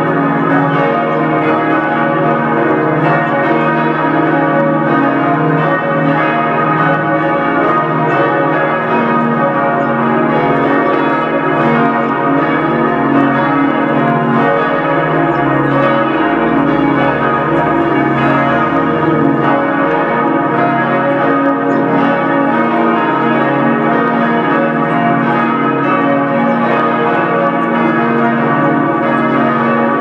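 Peal of several church tower bells swinging together, their strokes overlapping into a continuous ringing that holds steady throughout.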